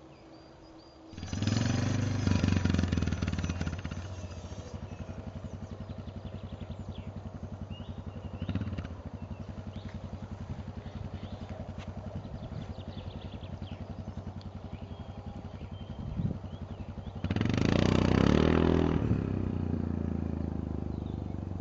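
An engine running steadily, with a fast pulsing beat. It comes in about a second in and is loudest in two spells, one just after it starts and one near the end.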